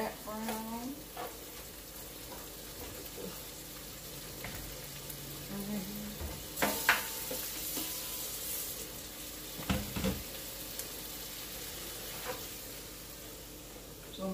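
Ground beef frying in a pan with a steady sizzle, and a few knocks of a utensil against the pan as it is stirred, about a third of the way in and again about two-thirds in.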